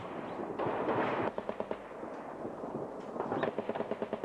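Sustained automatic gunfire: rapid, overlapping shots several a second, densest and loudest for a moment about a second in.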